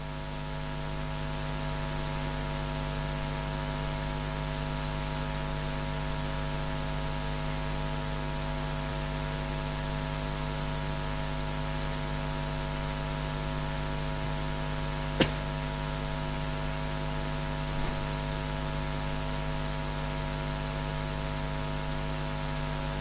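Steady electrical mains hum with many overtones and a hiss, from an amplified microphone and sound system left open with nobody speaking. The hiss swells over the first couple of seconds, and a single sharp click comes about fifteen seconds in.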